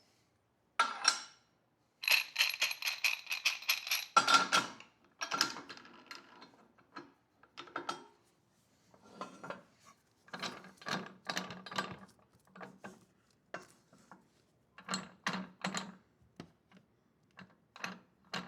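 Metallic ratcheting: a fast run of clicks about two seconds in, then short bursts of clicking and clanking.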